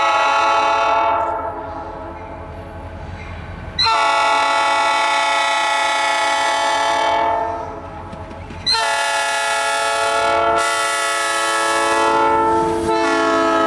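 Air horn of the approaching Norfolk Southern SD40-2 locomotive sounding long blasts: one ends about a second in, another lasts about three and a half seconds, and a third starts near the middle and holds past the end. The train rumbles in the gaps between blasts.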